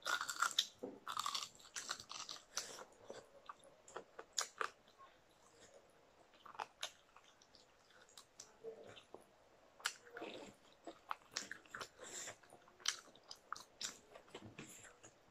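Biting and chewing into crispy fried chicken wings and leg pieces: many short, irregular crunches.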